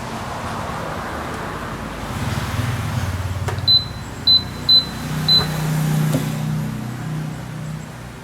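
Four short, high electronic beeps in quick succession, about half a second apart, over a low steady hum that swells and fades.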